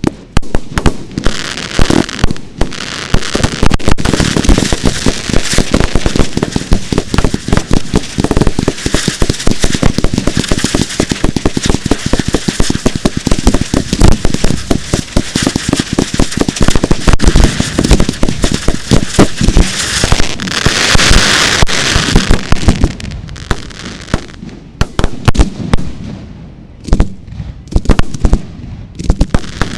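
Fireworks display: a dense run of sharp bangs and crackling from ground fountains and fired effects. A rushing hiss swells about twenty seconds in, the firing thins briefly, then picks up again near the end.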